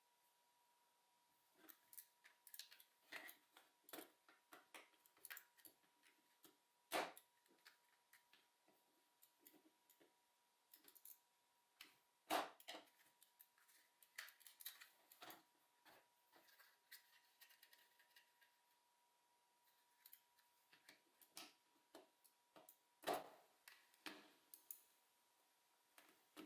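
Faint, irregular clicks and taps of small plastic parts and tools being handled as a Logitech G304 wireless mouse is taken apart, with three louder knocks.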